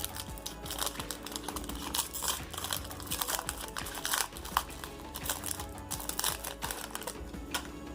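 Foil wrapper of a Pokémon card booster pack crinkling and tearing as it is handled and opened, with dense irregular crackles that stop near the end.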